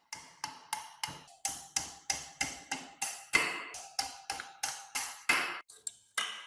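A fast, even series of sharp metallic strikes, about three a second and some eighteen in all, each with a short ring. They stop shortly before the end.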